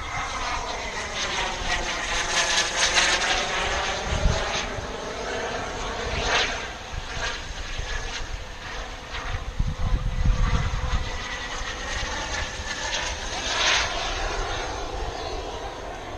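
Turbine engine of an RC J-10 model jet in flight, a steady whine whose pitch bends as the jet passes, swelling louder several times. Gusts of wind rumble on the microphone.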